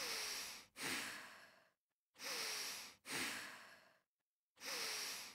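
A person breathing slowly and deeply, each in-breath followed by an out-breath with short pauses between breaths: two full breaths and the start of a third.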